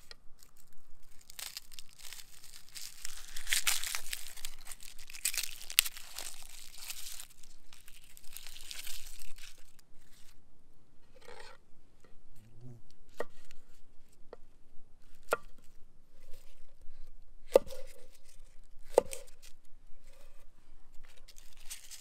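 Dry, papery vegetable skins crinkling and tearing as they are peeled, for several seconds. Then a kitchen knife slicing vegetables, with a handful of separate sharp knocks of the blade on a wooden cutting board.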